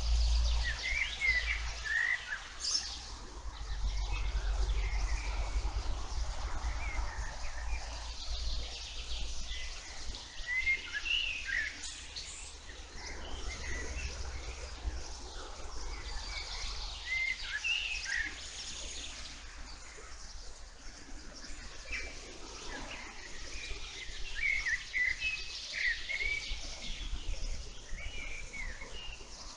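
Wild songbirds chirping in a meadow, short calls coming in little clusters every few seconds. A low rumble runs underneath, heavier in the first several seconds.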